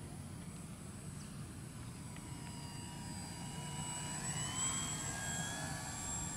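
GA8 Airvan foam RC model plane's motor and propeller whining in flight, a thin high whine that rises in pitch and grows slightly louder about four seconds in.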